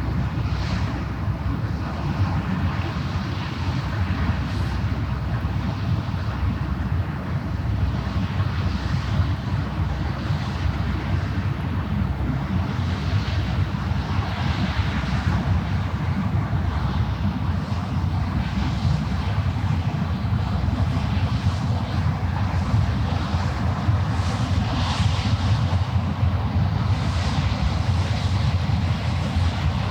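Steady low drone of a passing ship's engine, with wind buffeting the microphone and waves washing, the hiss swelling in soft gusts every few seconds.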